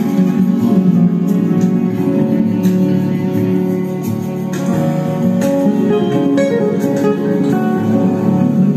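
Guitar-led music played through a loudspeaker driven by a home-built class D amplifier running on IRFP250 MOSFETs, as a sound test of the amplifier.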